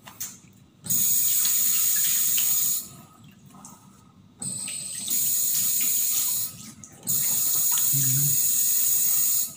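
Bathroom tap running into a ceramic vessel sink in three separate bursts of about two seconds each, each starting and stopping abruptly, with quieter pauses between them.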